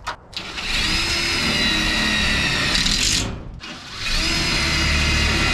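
Cordless drill driving self-tapping screws into the metal roof framing: the motor spins up and runs steadily for about three seconds, stops, then starts again about four seconds in for the second screw.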